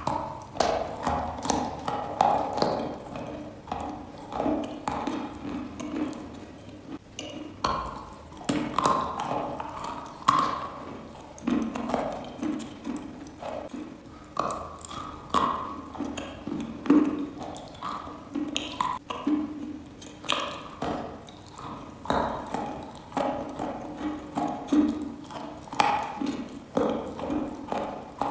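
Chalk being bitten and chewed close to the microphone: a crunching bite at the start, then a steady run of wet crunches and mouth clicks, about one to two chews a second.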